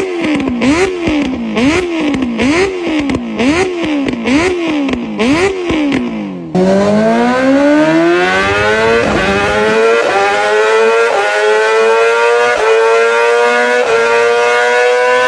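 Motorcycle engines. First one is revved in quick repeated blips, its pitch jumping up and falling back about one and a half times a second. After a sudden cut, another accelerates hard through several gears, its pitch climbing with a brief dip at each upshift.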